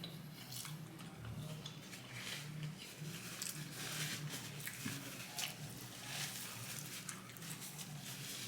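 Close-up chewing and biting of fast food: irregular wet crunches and mouth clicks.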